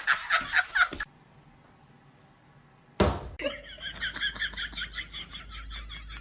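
Rhythmic laughter that cuts off about a second in, then a sharp knock about three seconds in, followed by a quick run of high-pitched repeated sounds at about five a second.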